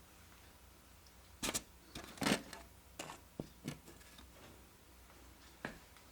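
N-scale model building pieces being set down and shifted by hand on a model railway layout: a handful of light knocks and clicks, the loudest about one and a half and two and a half seconds in.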